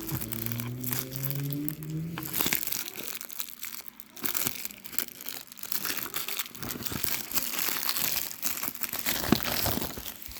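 Plastic shrink wrap being peeled and torn off a CD case, crinkling and crackling irregularly.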